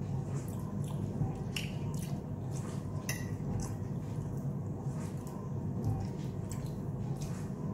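Mouth sounds of someone chewing soft lasagna, with a few short clicks of a metal fork against a ceramic plate, over a steady low background hum.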